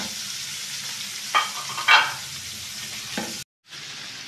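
Paneer cubes sizzling as they fry in butter in a non-stick pan, with a spatula knocking and scraping against the pan a few times; the loudest knocks come about one and a half to two seconds in. The sound cuts out for a moment a little past three seconds.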